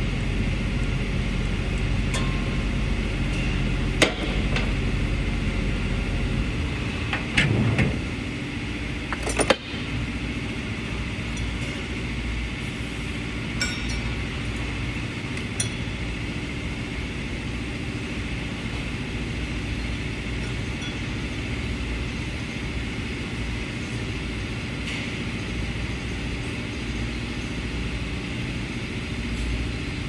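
Steady low mechanical hum with a few sharp metallic clinks and knocks from hand tools on engine parts, the loudest about four, seven and a half and nine and a half seconds in.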